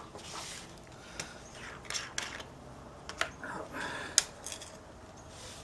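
Handling noises from a plastic lamp-oil bottle, a small funnel and a metal hurricane lantern: a few sharp clicks and taps with light rustling, the loudest tap about four seconds in.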